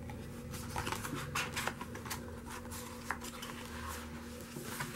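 Rustling and light clicks of a CD and a paper photobook being handled, the disc put down and the book's pages moved, in a series of short irregular scrapes.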